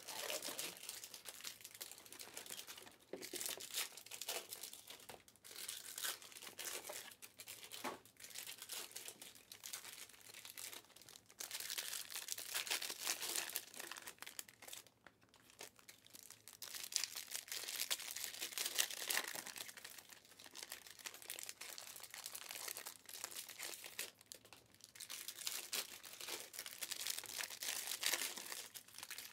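Panini Optic Fast Break trading card pack wrappers being torn open and crinkled by hand, in bouts of crackling with short pauses between.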